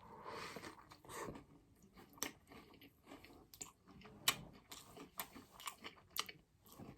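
A person chewing and biting food close to the microphone: irregular wet mouth clicks and smacks, several a second.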